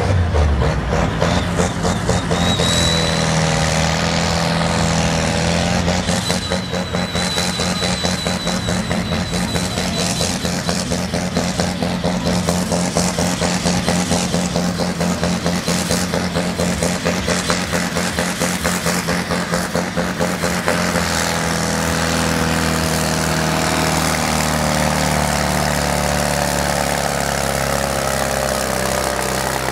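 Diesel farm tractor engine running hard under load while pulling a weighted sled, with a steady engine note and a fast, regular pulsing. About twenty seconds in, the pulsing stops and the engine runs on more smoothly.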